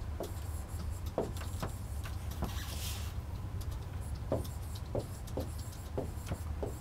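Faint scattered clicks and light scratches of a stylus on a pen tablet as words are handwritten, over a steady low hum. A short hiss comes about two and a half seconds in.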